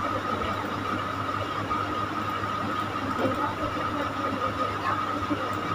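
Steady background hum and hiss with a constant thin whine, unchanging throughout.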